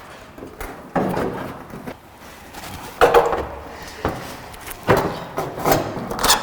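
Clunks and knocks of steel car body panels being handled and offered up during a trial fit of the front end: about four heavy knocks, the loudest about three seconds in.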